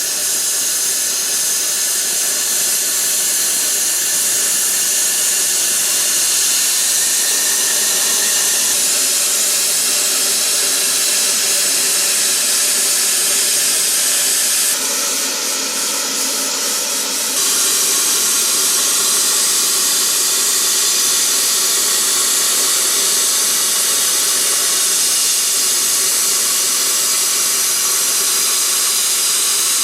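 Plasma cutter cutting out a spanner: a loud, steady hiss from the arc and air jet, changing tone briefly about halfway through.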